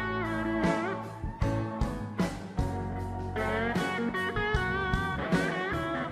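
Background music led by guitar, its melody notes bending in pitch over a steady bass.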